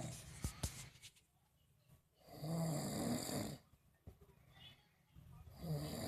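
Snoring: one long rasping snore in the middle and the next beginning near the end, about three seconds apart, with two short clicks about half a second in.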